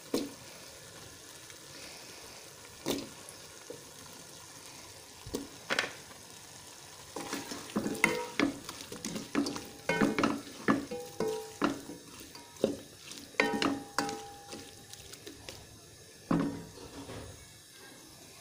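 A spoon stirring minced meat, peas and potato cubes in a pot, clinking and scraping against it, some strokes leaving a short ring. There are a few separate knocks, then a quick run of clinks from about seven to fifteen seconds in, over a faint sizzle of the food cooking.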